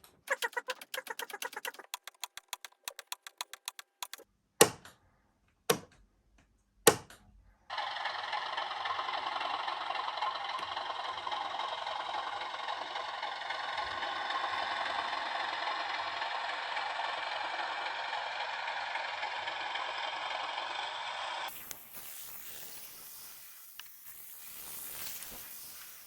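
A fast run of light clicks, then three sharp clacks about a second apart: a SEEP PM2 solenoid point motor snapping the point over, fired from a capacitor discharge unit. A long, steady rushing noise follows, starting and stopping abruptly.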